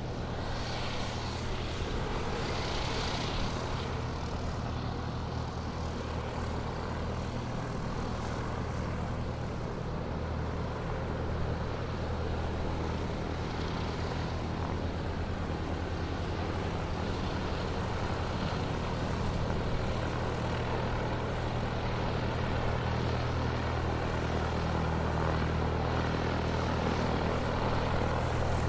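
Airplane taxiing: a steady engine drone with a low hum and a broad hiss over it, growing slightly louder toward the end.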